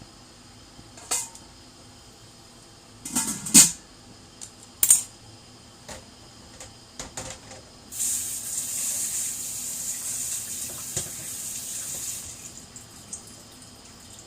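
Kitchen sounds: dishes and utensils clink and knock a few times, then a tap runs steadily for about four seconds and is shut off.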